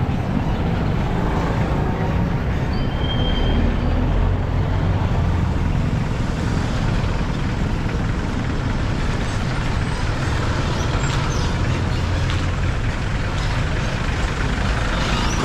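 Steady engine and road noise from a vehicle being driven, a continuous low rumble.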